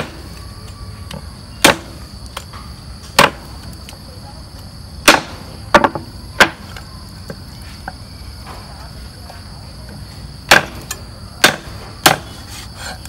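Cleaver striking pork hock on a wooden chopping board: about nine sharp knocks at uneven intervals, with a pause of several seconds in the middle. A steady high insect drone runs behind.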